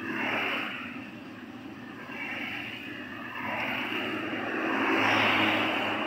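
Road traffic passing close by, vehicles going by in swells of engine and tyre noise, the loudest about five seconds in.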